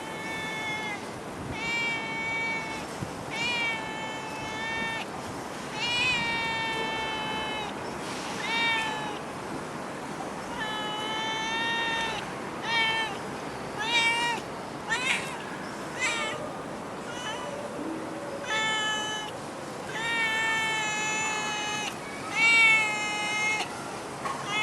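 Stray female cat meowing over and over: a dozen or so drawn-out meows, each up to about a second and a half long, with short pauses between them.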